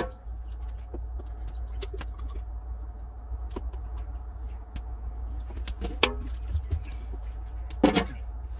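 Metal cooking utensils clinking and scraping in a wok of prawns, with louder clatters about six and eight seconds in, over a steady low rumble.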